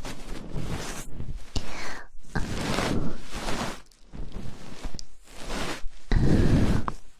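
Close rustling and rubbing noise on the microphone, irregular breath-like swishes, loudest about six seconds in.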